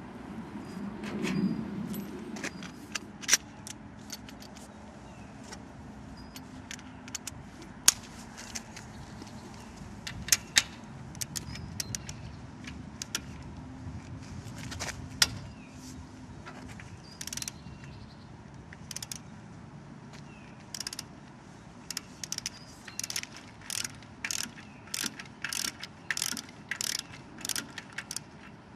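Wera Koloss double-pawl ratchet clicking as bolts are turned: scattered sharp clicks at first, then a steady run of strokes at about two a second near the end.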